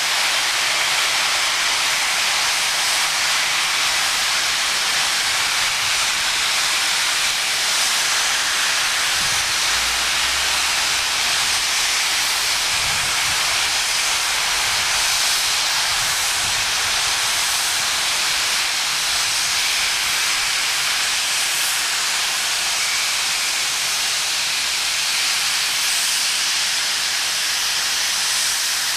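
Isle of Man Railway No. 12 Hutchinson, a Beyer Peacock 2-4-0 tank steam locomotive, standing with steam escaping in a steady, loud hiss.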